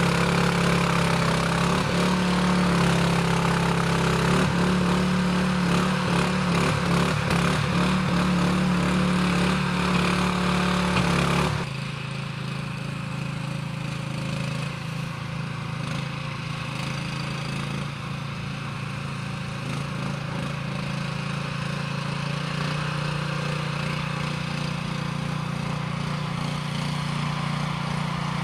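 Engine of a Jansen RD-500 tracked mini dumper with hydrostatic drive, running steadily as the dumper travels. The sound drops abruptly and becomes quieter about eleven and a half seconds in, then runs on evenly.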